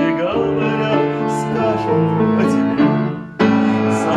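Upright piano playing an instrumental passage of a light song accompaniment between sung lines. After a brief drop about three and a half seconds in, a loud new chord is struck.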